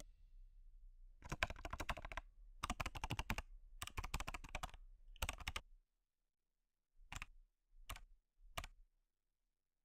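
Typing on a laptop keyboard: four quick runs of keystrokes over the first six seconds, then three single key presses spaced well apart near the end.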